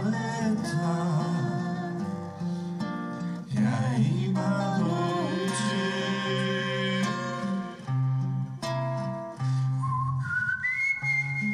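Live acoustic guitar accompanying a high, held melody line with vibrato. Near the end the melody steps up to a long high note.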